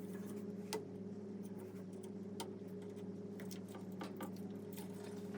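Irregular small metallic clicks and ticks of captive screws being worked loose on the underside of a wire bonder's force motor, over a steady low electrical hum.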